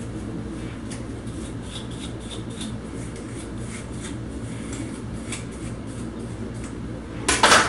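Fingers running through and separating a section of stretched natural hair, making faint soft rustles over a steady low hum. A brief loud noise comes near the end.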